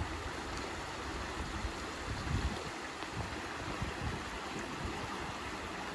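Shallow stream rushing fast over a stony bed in a stone-walled channel, a steady hiss of running water. Wind buffets the microphone now and then, most at the start and about two seconds in.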